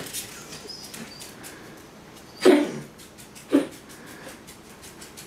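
Dog giving two short barks about a second apart, over faint rapid clicking.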